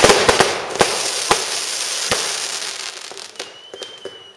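Fireworks going off: a cluster of loud bangs with dense crackling at the start, a few more single bangs over the next two seconds, and the crackle dying away. A thin steady whistle sounds near the end.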